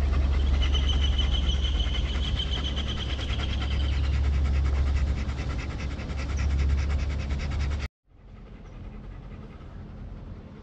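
German Shepherd dog panting close to the microphone over a steady low rumble. About eight seconds in the sound cuts off abruptly and gives way to a quieter background.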